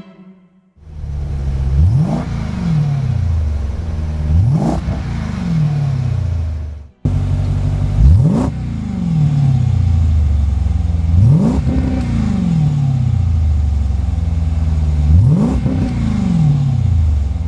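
2014 Jeep Grand Cherokee SRT's HEMI V8 through a MagnaFlow performance exhaust, idling and revved five times, each rev rising sharply in pitch and falling back to idle.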